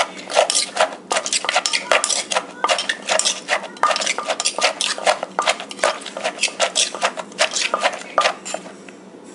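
Wooden pestle pounding shredded papaya salad in a clay mortar, with a metal spoon clinking and scraping against the mortar as the ingredients are turned: quick, irregular knocks several times a second that ease off near the end.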